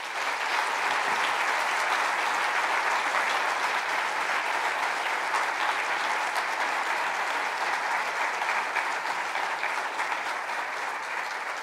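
Large audience applauding: steady, dense clapping that starts at once and eases off a little near the end.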